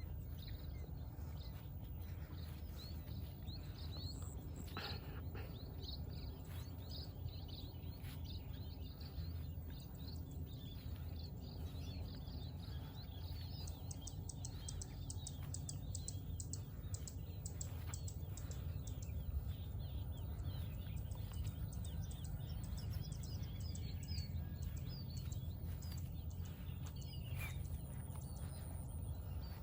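Small birds chirping and calling repeatedly over a steady low rumble of outdoor background noise, with a rapid, very high ticking trill for several seconds in the middle.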